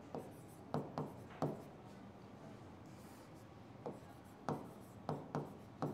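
Pen handwriting on an interactive whiteboard screen: about nine short, faint scratching strokes in uneven clusters, with a pause of a couple of seconds in the middle.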